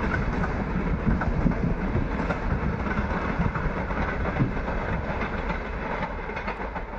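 Train running along the rails: steady wheel-on-rail rumble with some clatter, easing off slightly near the end.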